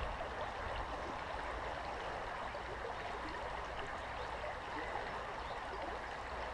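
Shallow river water flowing steadily, an even rushing hiss.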